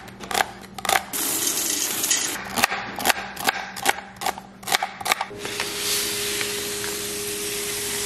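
Kitchen knife chopping celery on a plastic cutting board: about ten sharp knocks of the blade hitting the board, irregularly spaced. After about five seconds the chopping stops and a steady hiss with a faint hum takes over.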